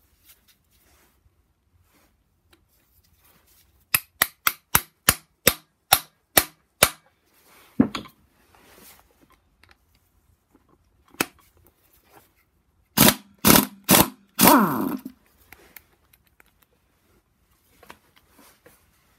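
About nine sharp hammer taps on a socket, driving it down onto a crankshaft pulley bolt of a BMW N54 engine. About thirteen seconds in, an impact wrench fires four short bursts on the pulley bolts, the last one a little longer.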